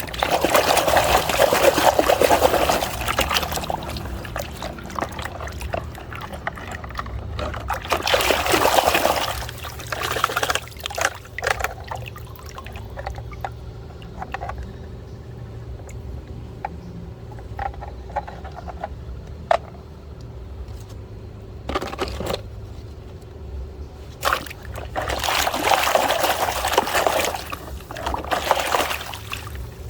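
Water pouring over muddy toys as they are washed, in four spells of a few seconds each, with small knocks and clicks in between.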